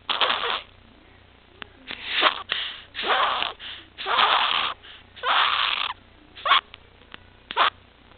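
A six-week-old infant's harsh, noisy breaths with stridor: about seven gasping breaths roughly a second apart, the last two short. The stridor is the sign of laryngomalacia and tracheomalacia.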